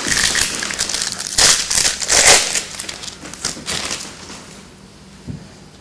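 Crinkling of a trading-card pack wrapper being handled, densest over the first two and a half seconds, then dying down to faint rustling, with a soft knock near the end.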